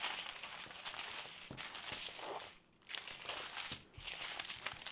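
Crinkling and rustling of small plastic bags of diamond-painting drills and the stiff canvas as they are handled, in uneven bursts with two brief pauses.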